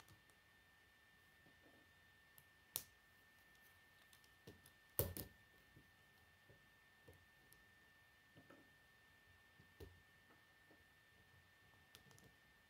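Quiet plastic clicks and ticks of K'nex construction pieces being handled and snapped together, with a sharp snap about three seconds in and the loudest cluster of clicks about five seconds in.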